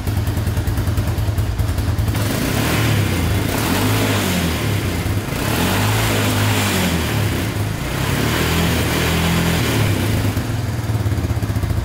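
1998 Honda Fourtrax 300 ATV's single-cylinder four-stroke engine idling, then revved up and down several times while warm, dropping back to idle near the end.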